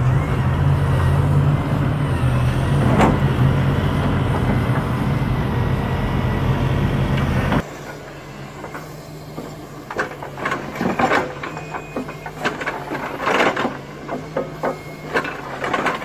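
Wheeled excavator's diesel engine running loudly and steadily. About eight seconds in the sound drops to a quieter engine hum, and the bucket digs into soil with scattered scrapes and knocks.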